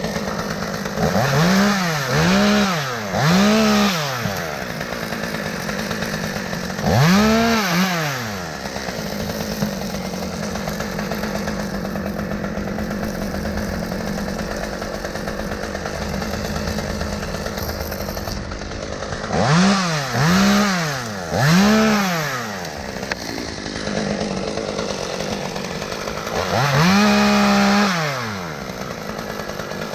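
Stihl M-Tronic chainsaw idling and being revved in repeated short blips, the pitch rising and dropping back each time, with one longer held rev near the end. The saw has been running poorly; the owner thinks the carburetor needs rebuilding and that the clutch springs might also be at fault.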